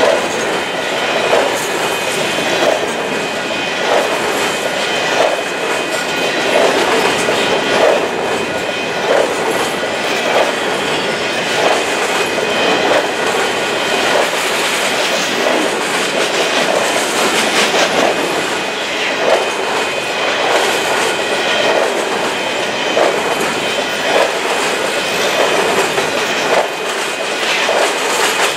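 Empty covered hopper grain cars rolling past at speed, their wheels knocking in a steady clickety-clack rhythm over the rails under a continuous rumble and rush, with a steady high ring above it.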